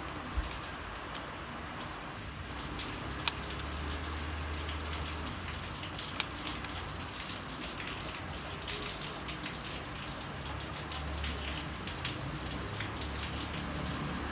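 Rubber bands stretched and snapped against a phone's glass and frame as they are wrapped around it, a few sharp clicks, the loudest about three seconds in, over a steady hiss.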